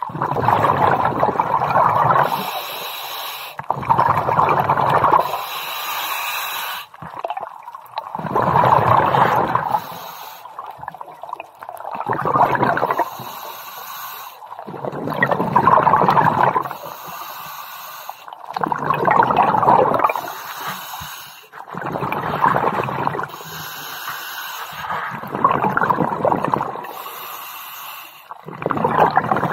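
A scuba diver breathing through a regulator underwater: a gurgling rush of exhaled bubbles about every three and a half seconds, with a fainter hiss from the demand valve on each inhale in between.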